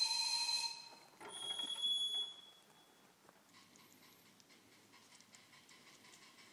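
Two blasts of a 5-inch gauge live steam locomotive's whistle: the first stops about a second in, the second is higher and lasts about a second. After that, a faint steady hiss with light ticking.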